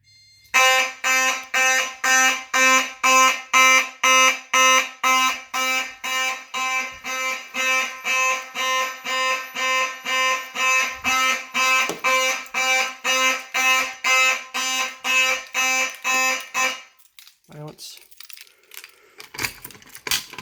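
Simplex 4903-9101 horn/strobe with its 9838 horn sounding a fire alarm in march time, a buzzy blast about twice a second, set off from a manual pull station. It stops about 17 seconds in, leaving a few faint clicks.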